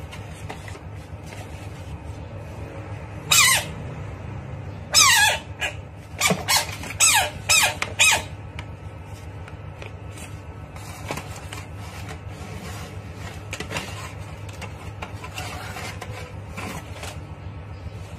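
A run of short, high-pitched animal squeals, each falling in pitch. About ten come in quick succession between roughly three and eight seconds in, then fainter squeaks follow, over a steady low hum.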